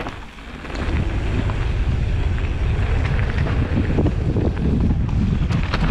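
Mountain bike riding fast down a dry, loose dirt trail: wind buffeting the helmet-camera microphone and tyres rolling over dirt, with occasional clicks and knocks from the bike. The rumble builds about a second in and then stays steady.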